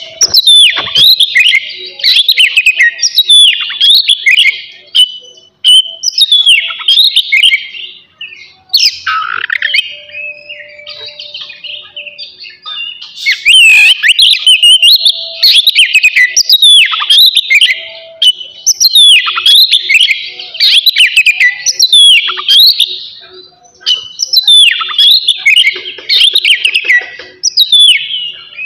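Oriental magpie-robin (kacer) singing loudly in long runs of rapid, varied whistles and sweeping notes, broken by a few short pauses.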